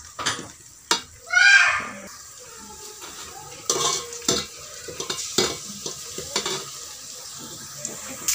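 A spatula stirring and scraping in a pan of onions, spices and cashews frying in ghee and coconut oil, with light sizzling and repeated short scrapes and knocks against the pan. A brief wavering pitched sound about a second and a half in is the loudest moment.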